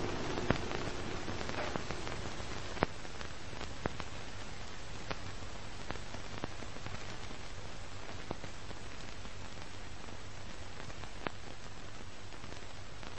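Steady hiss and crackle in the manner of an old film soundtrack, with a faint low hum beneath and about ten scattered sharp pops, the loudest about half a second and about three seconds in.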